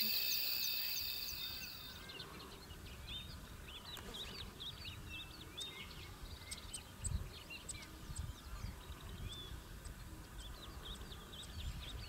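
A steady chorus of night insects runs for about the first two seconds, then gives way to many birds chirping and calling over a low rumble.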